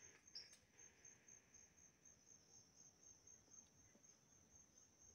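Faint insects chirring: a thin, high, steady trill that pulses regularly, over an otherwise near-silent forest.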